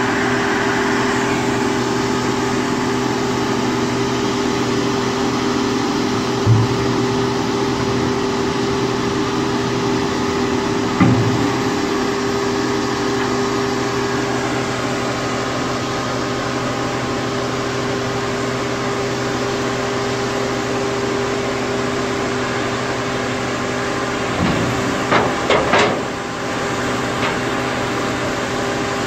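Aljon 580 scrap-car baler's engine and hydraulics running steadily with a constant hum. A single metal knock comes about six seconds in and another about eleven seconds in, and a quick run of metal clanks comes near the end.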